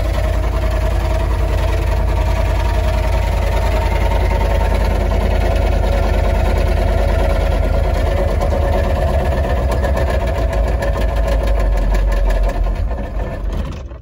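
Humvee's diesel V8 running and knocking hard with a rapid, even knock, which the mechanic takes for rod knock with almost no oil pressure. The engine sound falls away near the end.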